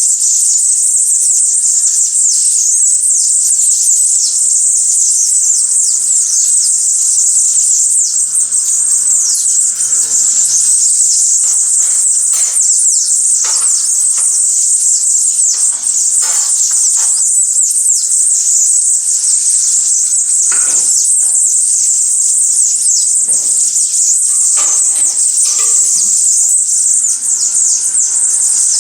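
Dense, continuous chorus of many small birds giving high, thin, rapid calls, with louder, sharper calls breaking in now and then.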